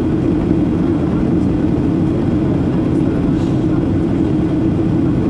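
Steady cabin drone of a Boeing 737-800 in descent: its CFM56-7B jet engines and the airflow over the fuselage, heard inside the cabin at a window seat. It is a deep, unchanging drone with a hiss above it.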